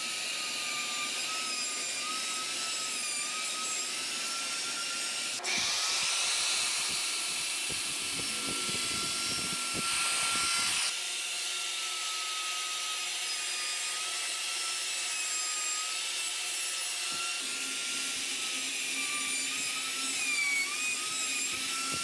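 Plunge router running with a steady high whine while it cuts a mortise into the end grain of a wooden table apron, guided by a bushing in a template jig. The cut grows louder from about five to eleven seconds in.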